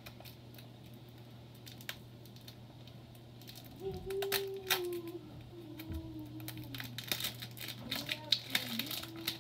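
Plastic shrink wrap on a Blu-ray case being handled and peeled, a quick run of crinkling clicks in the second half. Under it is a steady low hum.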